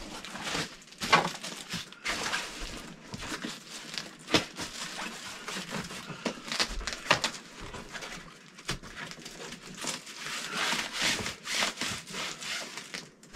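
Fabric rustling and handling of a green fabric-covered Vallon detector case as its lid is closed and its webbing straps are worked, with scattered sharp knocks and clicks and a longer spell of rustling near the end.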